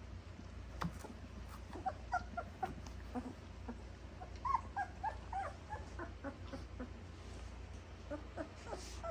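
A litter of about two-and-a-half-week-old Labrador retriever puppies whimpering and squeaking, many short high little cries scattered throughout, over a low steady hum.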